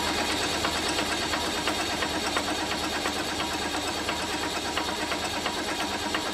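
Leyland 285 tractor's diesel engine running steadily with a fast, even knocking clatter.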